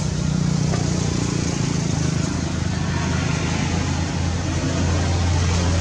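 Steady drone of a motor vehicle's engine running nearby, its pitch dropping slightly about two seconds in, over a constant hiss.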